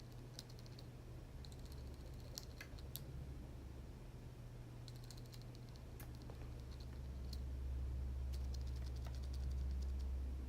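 Computer keyboard keys clicking in short irregular runs of typing, over a low steady hum that swells in the last few seconds.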